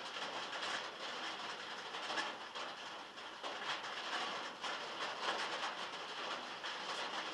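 Heavy rain falling on a metal roof, heard from inside the shed: a dense, steady patter with many sharper individual drop hits scattered through it.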